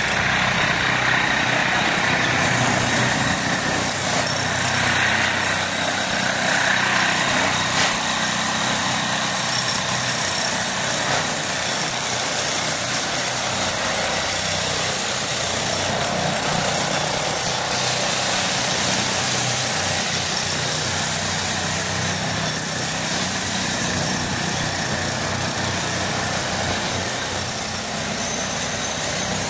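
A small engine running steadily, with a constant hiss over it and no change in level.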